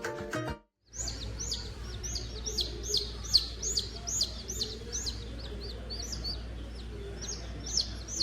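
Small birds chirping: a rapid run of high, quickly falling chirps, two or three a second, over a low steady hum. Music cuts off just before it starts.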